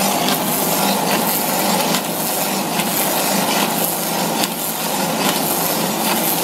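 FK-2 copy-milling machine cutting two wooden blanks into handle shapes: steady cutter noise with wood chipping, pulsing a little under once a second.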